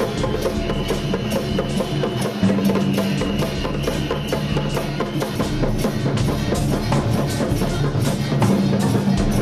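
Traditional temple-festival percussion music: loud, rapid drumming and struck percussion with held notes underneath.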